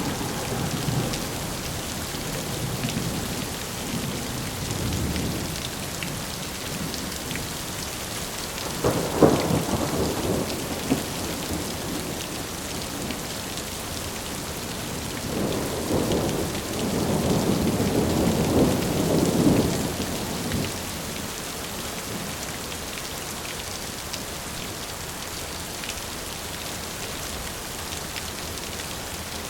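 Steady rain with thunder: a rumble dying away at the start, a sharper clap about nine seconds in, and a longer rolling rumble from about sixteen to twenty seconds, after which only the rain continues.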